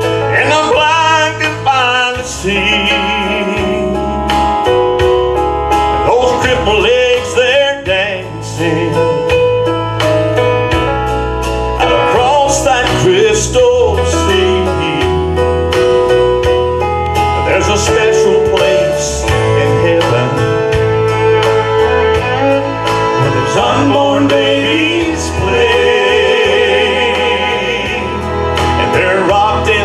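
Gospel song with country-style instrumental accompaniment, loud and continuous with a steady bass line, and a man's singing voice over it at times.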